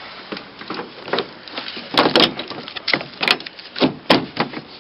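Sharp clicks and knocks of hard parts being handled and fitted while replacing a truck's inner door handle, a few scattered strikes with the loudest cluster around two to four seconds in.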